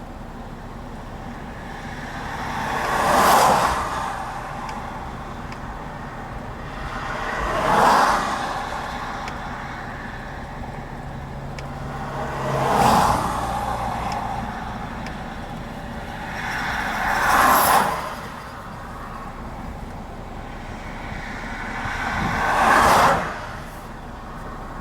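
Five vehicles passing by one after another on the road, each rising to a whoosh of tyre and engine noise and then quickly fading.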